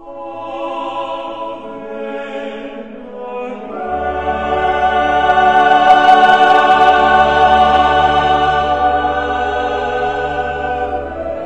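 Background music: choral singing in long held chords. About four seconds in, a deep bass enters and the music swells louder, then eases off a little near the end.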